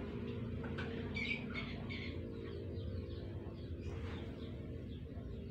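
Birds chirping a few times in the background about a second in, over a steady low hum.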